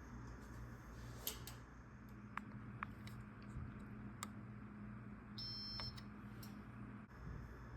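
Casablanca Holliston ceiling fan running on its lowest speed: a faint, slowly pulsing low motor hum with a few light ticks. A steadier hum joins about two seconds in and drops away near the end.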